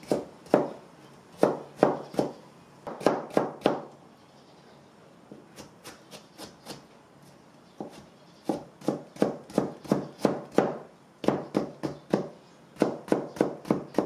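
Chef's knife slicing cucumber into thin strips on a plastic cutting board: clusters of sharp knife strikes on the board, a quieter stretch of a few faint ticks in the middle, then a steady run of about three to four strikes a second.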